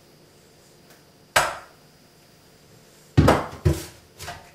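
Pot and strainer clanking in a kitchen sink: one sharp knock about a second and a half in, then three more close together near the end, the last softer.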